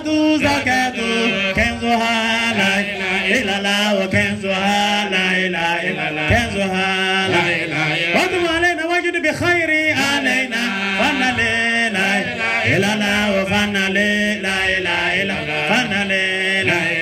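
A man chanting an Arabic Islamic supplication into a microphone, in a continuous melodic line of long held notes with ornamented slides between them.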